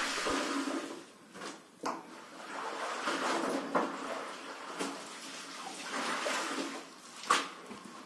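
Soapy water splashing and dripping in a plastic washtub as laundry is squeezed out and worked by hand, coming in several swells, with a sharp knock near the end.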